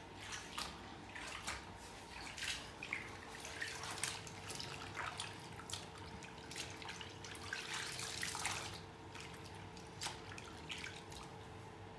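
Small irregular splashes and drips of water in a tub as a fabric apron is soaked in soapy water, thinning out near the end.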